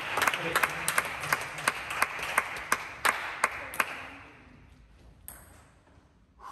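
Table tennis rally: the ball clicks off bats and table about three times a second, and the rally stops about four seconds in. A single light tap of the ball follows a little later.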